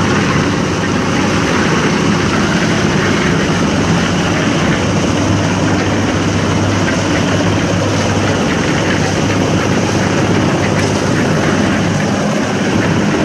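Portable drum concrete mixer's engine running steadily under load, a constant droning hum as the drum turns with a batch of concrete.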